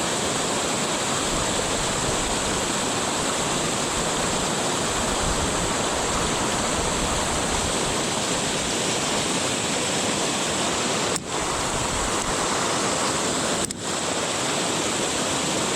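Rushing mountain river water, a steady even wash of current, which cuts out briefly twice near the end.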